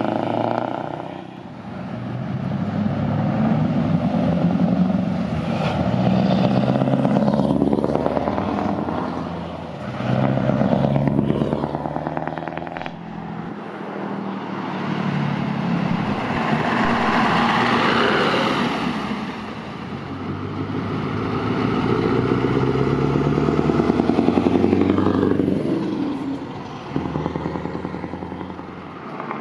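Heavy diesel trucks driving past one after another, each engine growing louder as it approaches and fading as it passes, with one audibly accelerating partway through.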